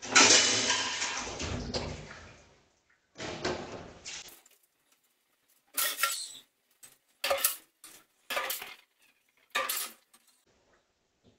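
Dishes and utensils clattering at a kitchen sink, picked up by a security camera's microphone: a longer clatter at the start, a second one about three seconds in, then a run of short separate clinks and knocks.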